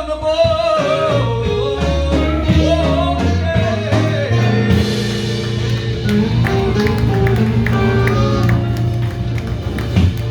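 Live blues band playing the close of a song: a singer's bending line over guitar and bass for the first few seconds, then the band plays on alone to a final hit near the end.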